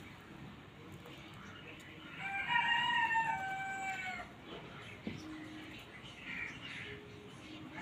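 A rooster crowing once, a single call of about two seconds starting about two seconds in, its pitch stepping down toward the end.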